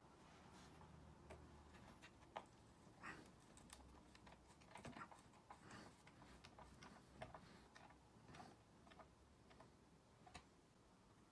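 Faint, irregular clicks and ticks of a hand screwdriver turning screws through a steel drawer slide into plywood.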